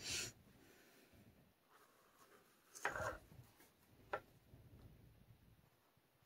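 Faint handling noises of a small canvas board and paintbrush on a tabletop: a brief hiss at the start, a louder scrape about three seconds in as the board is turned, and a single sharp click about a second later.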